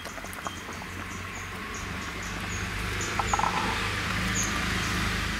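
Sambar simmering in a pot on a gas stove: a steady hiss that grows louder about halfway through, with a few light clicks. Over it a small bird chirps again and again in short, high chirps.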